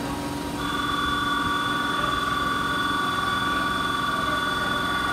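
Station platform departure bell ringing steadily at a few fixed pitches, starting about half a second in: the signal that the train's doors are about to close. Under it, the standing electric train's steady low hum.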